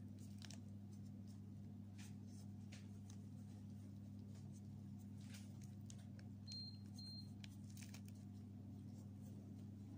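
Faint rustling and light clicks of gloved hands folding and rolling thin spring roll wrappers, over a steady low hum. Two short high-pitched chirps sound a little past the middle.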